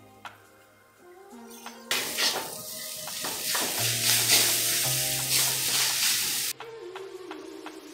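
Noodles sizzling in a hot steel wok while a metal spatula stirs and tosses them, with scraping strokes against the pan. The sizzle cuts in suddenly about two seconds in and drops away shortly before the end, over steady background music.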